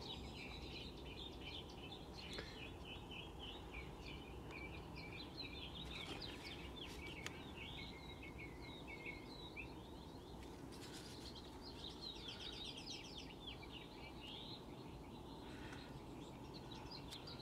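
Faint birdsong: small birds chirping in quick trills, with a few soft clicks from the push switches of a CRT tester.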